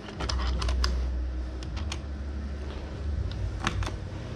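Scattered light clicks and taps from small hardware being handled, over a steady low rumble that eases near the end.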